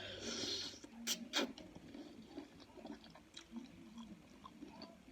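A person chewing seafood boil food close to the microphone, with soft wet mouth sounds. There is a short hiss in the first second and two sharp clicks just after a second in.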